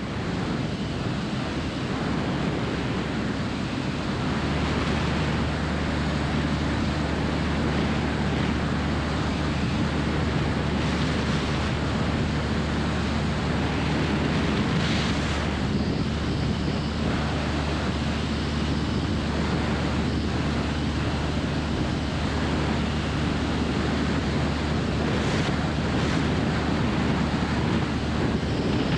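Wind noise on a camera mounted outside a Jodel DR1050 light aircraft in flight, with the steady low drone of its piston engine and propeller underneath.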